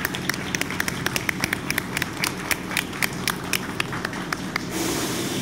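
A small crowd applauding, with sharp individual hand claps close by. The clapping stops near the end and a steady rushing noise takes over.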